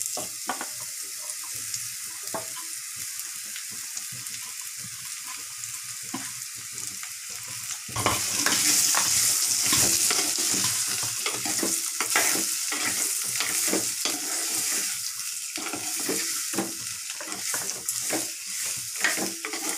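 Chopped raw mango and onion tempering sizzling in hot oil in a clay pot, with a spoon knocking and scraping against the pot as it is stirred. The sizzle gets suddenly louder about eight seconds in and stays up.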